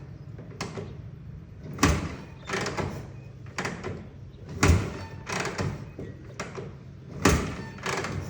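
1960 Harley-Davidson FL Panhead being kick-started again and again without catching, about one kick every three seconds: each kick gives a sharp clack followed by a few duller bursts. The engine is hard to start cold.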